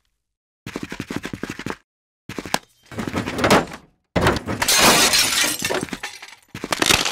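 Dubbed-in clattering and crashing sound effects in separate bursts with dead silence between them: a quick rattle about a second in, more clatter around three seconds, and the loudest, longest crash from about four to six seconds in, then a short burst near the end.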